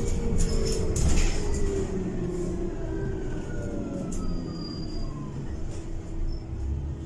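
Heuliez GX337 natural-gas city bus heard from inside while driving: a steady low rumble of engine and drivetrain with a whine that slowly falls in pitch. Several rattles and knocks from the cabin, the loudest about a second in.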